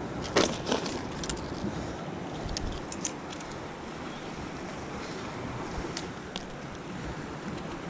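Steady surf and wind noise, with a few small metallic clicks and clinks as pliers work a hook out of a fish's mouth; the loudest click comes about half a second in.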